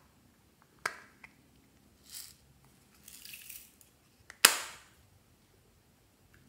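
Hard plastic toy container being handled and opened: a sharp click, a lighter click, scraping rustles of plastic parts, then a loud sharp snap about four and a half seconds in.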